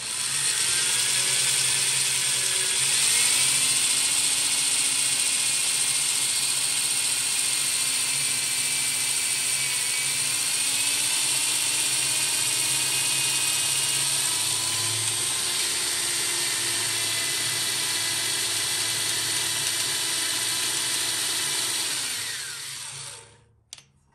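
Corded electric drill boring into the hardened-steel press ring of a rear axle bearing, running steadily with a faint whine that drifts in pitch, then winding down and stopping near the end.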